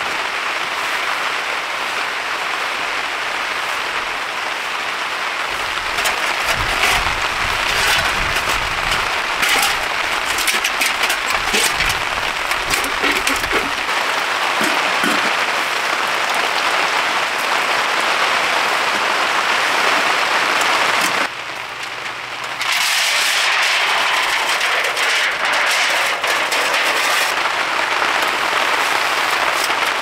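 Heavy rain falling on a tent, a dense, steady hiss. A low rumble runs for several seconds in the first half, and the rain noise drops briefly about two-thirds of the way in.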